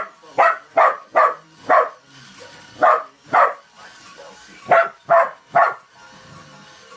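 A dog barking at a toy Christmas train: about ten short, sharp barks in three runs, five, then two, then three.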